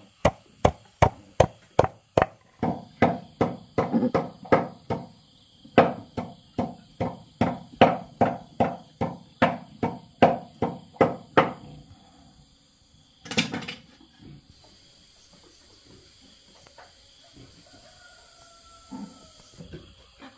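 A large knife chopping leafy greens on a wooden board, about two and a half even strokes a second, stopping about eleven seconds in; one louder single knock follows shortly after. Insects shrill steadily throughout.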